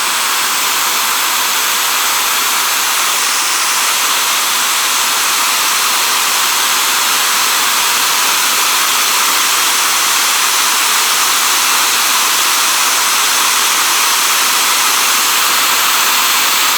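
A loud, steady hiss with no pitch to it, running unbroken for about seventeen seconds and cutting off sharply.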